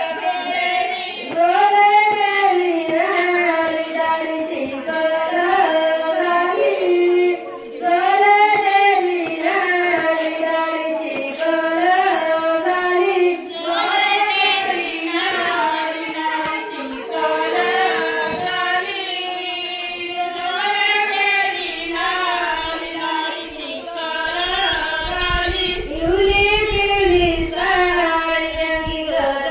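Women singing a traditional Konkan chundalani work song, the grain-cleaning songs of wedding preparations, in long wavering melodic phrases a few seconds each.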